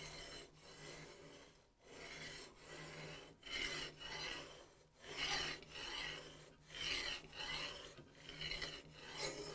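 Double-gun barrel being run up and down and turned on the rod of a barrel wall-thickness gauge, searching for its thinnest point: faint rasping rubs, about a dozen short strokes of roughly half a second each.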